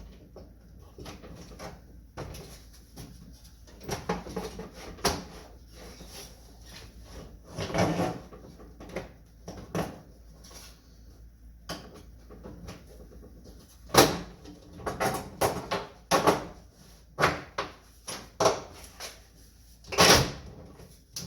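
Interior door trim panel being fitted back onto a 1977 Chevrolet C10 truck door: irregular knocks, taps and scraping as the panel and its clips are pushed into place, with the two sharpest knocks about halfway through and near the end.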